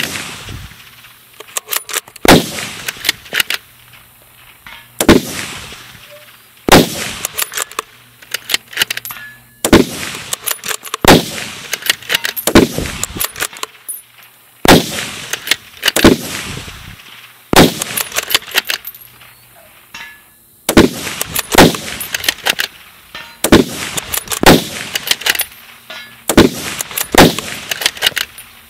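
Two .308 bolt-action rifles, a Ruger Precision Rifle and a Remington 700, firing in turn: more than a dozen loud shots, one every one to two seconds, each trailing off in an echo.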